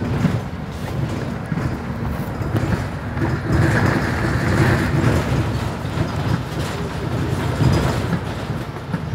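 Mercedes-Benz Citaro O530G articulated city bus heard from inside, a steady low rumble of engine and running gear, with a brief hiss about four seconds in.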